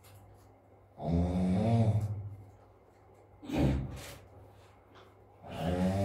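A sleeping person snoring heavily: two long, low, buzzing snores about four and a half seconds apart, with a shorter breathy burst of air between them.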